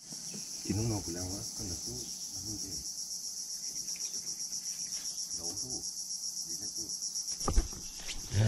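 Insects chirping in a steady, rapidly pulsing high-pitched drone, with faint voices underneath.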